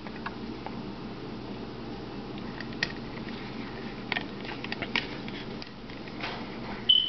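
IKEA STÄM handheld can opener being fitted onto the rim of a tin can: a few faint clicks and taps, then a sharper click with a brief ring near the end, over a steady background hum.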